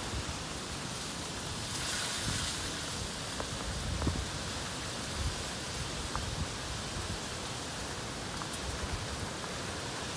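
Chicken thighs frying in hot oil in a pan over a wood fire: a steady sizzle with a few faint pops.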